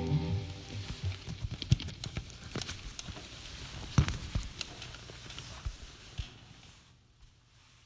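Light handling noise: scattered small clicks and knocks, a few sharper than the rest, thinning out to near silence about six and a half seconds in.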